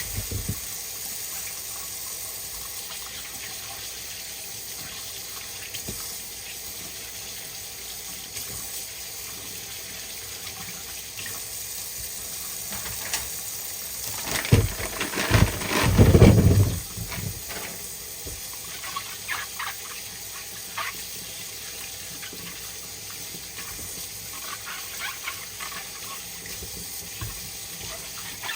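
Kitchen tap running into the sink while fresh produce is washed. About halfway through there is a louder burst lasting two to three seconds, with a few small knocks after it.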